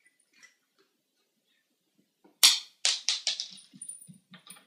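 A cat's claws and paws scrambling on a tile floor as it dashes off: one sharp clack about halfway through, then a quick run of clicking and scraping, with a few soft thumps near the end.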